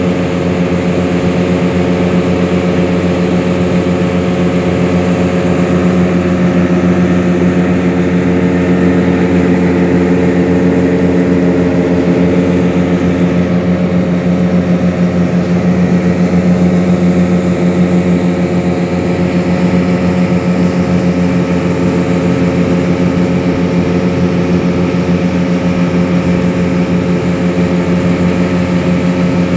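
An engine running at a steady, constant speed: a loud, even drone that holds one pitch without changing.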